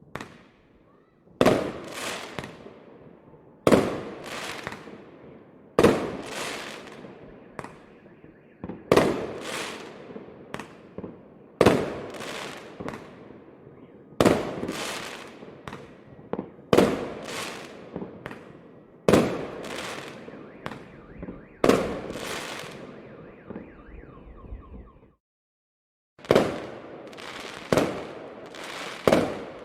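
Fireworks shells bursting, each one a sharp bang followed by a fading crackle and echo. The bangs come about every two to three seconds. Near the end the sound breaks off for about a second, then bangs resume more quickly, about every second and a half.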